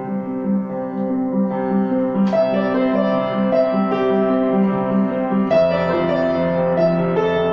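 Upright piano played with both hands: a melody and chords over a steadily pulsing left-hand accompaniment of repeated notes, with new chords struck about two seconds in and again about five and a half seconds in.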